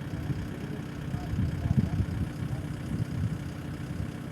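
An engine idling steadily, briefly louder for a couple of seconds midway.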